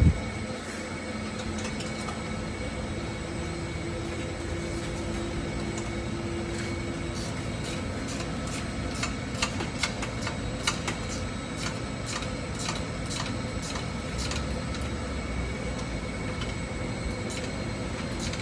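Steady hum of workshop background noise, with scattered light clicks and metal taps from about halfway through as the exhaust pipes and clamps are handled and fitted under the car.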